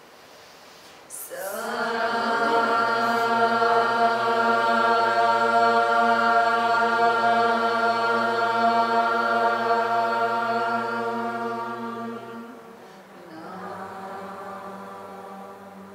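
A group of voices chanting a mantra in unison on one long held note. It starts about a second in, holds steady and fades out after about eleven seconds, and a shorter, softer held note follows near the end.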